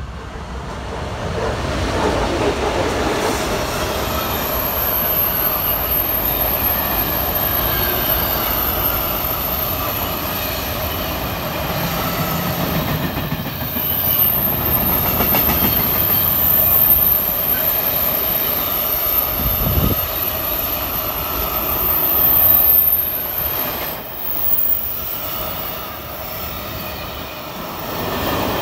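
Freight train passing close by: the locomotive goes past first, then a long rake of open-top freight wagons rolls by with a steady rumble and clatter of wheels on rail. A thin, high-pitched wheel squeal rides above the rumble from a few seconds in.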